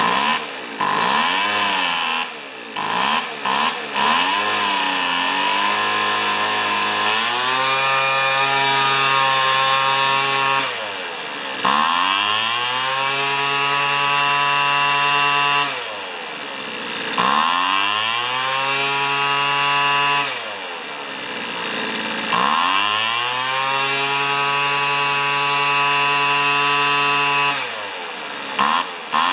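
Weed Eater leaf blower's two-stroke engine, freshly tuned on its H and L carburettor screws. It idles with a few quick blips, then is revved up to full speed and held, four times, rising smoothly in pitch each time and dropping back to idle.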